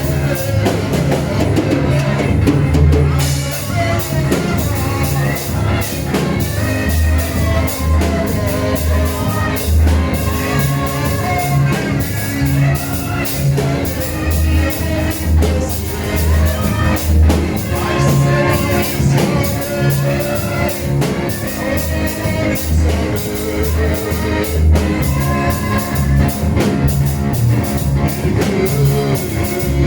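Church praise and worship music: a drum kit keeping a steady beat under singing voices.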